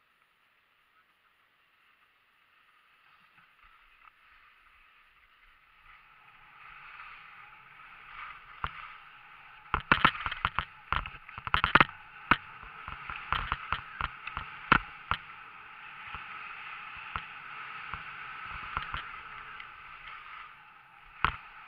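Skis hissing and scraping over packed snow as the skier gets moving downhill: faint at first, growing steadily from about six seconds in, with a run of sharp knocks and clatters from about ten seconds in.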